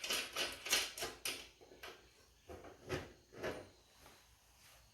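A fast, even run of metallic clicks, about six a second, stops about a second in. A few separate knocks follow as metal parts are handled on the mower deck.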